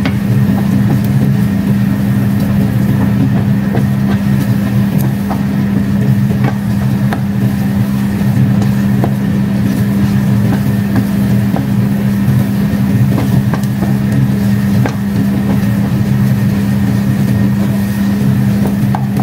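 Steady low machine hum, with light scrapes and taps of a wooden spoon stirring cooked glutinous rice in a frying pan.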